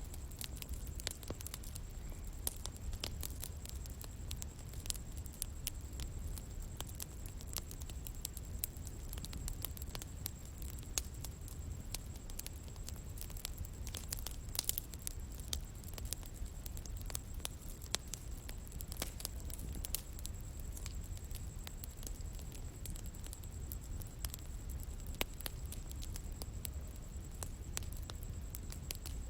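Wood bonfire burning, with frequent sharp crackles and pops over a steady low rumble. A thin, steady high-pitched tone runs underneath.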